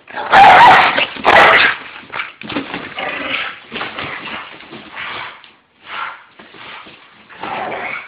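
Pit bull barking and whimpering excitedly: two loud outbursts in the first two seconds, then a string of shorter, quieter yips.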